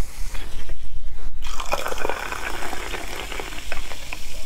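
Cola poured over ice into a glass. About a second and a half in it turns into a steady fizzing with many small crackles.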